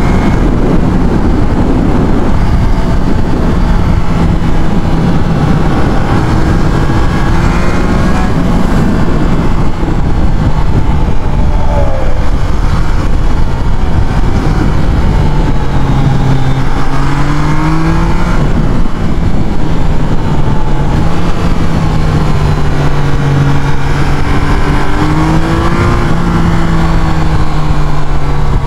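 Triumph Trident 660's inline three-cylinder engine running while under way, its note rising and falling several times as the throttle is opened and closed, over heavy wind rush on the microphone.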